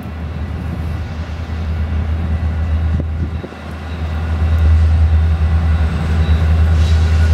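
Diesel locomotive engine running as a train approaches, a deep rumble that grows louder, dips briefly about halfway through, then builds again.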